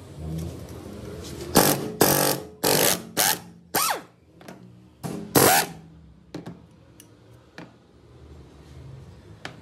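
Chicago Pneumatic air impact wrench hammering on the rear sprocket's nuts in about six short bursts, one winding down in pitch as the air motor slows. A few light clicks follow near the end.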